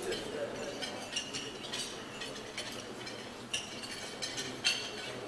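Cutlery and china cups clinking on a breakfast table, several sharp clinks over faint room chatter, the loudest about four and a half seconds in.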